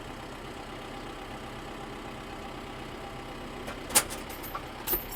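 An engine running steadily under load while a chain pulls on the net wrap. There is a sharp metallic knock about four seconds in and a second, smaller knock just before the end, as the chain slips.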